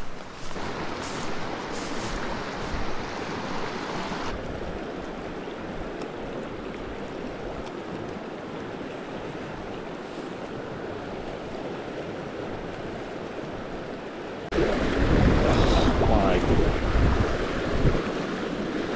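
Fast-flowing mountain stream rushing steadily, running high after snowmelt. It turns abruptly louder and heavier about fourteen seconds in.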